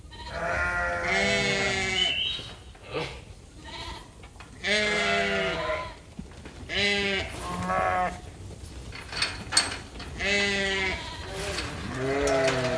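Sheep bleating in a crowded flock: about six long, wavering bleats of about a second each, some overlapping, with a single sharp click about two-thirds of the way through.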